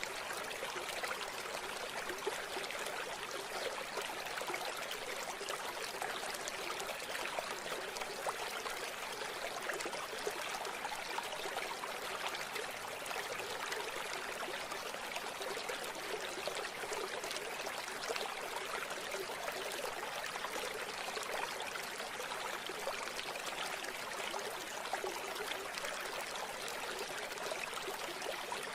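River water flowing and splashing over rocks, a steady, even rushing.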